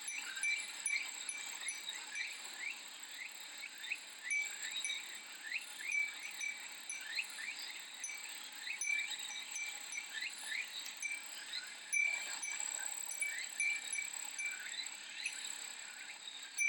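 Cicadas singing in a steady high pulsing drone, with many short chirping notes, while a Japanese furin glass wind chime tinkles now and then.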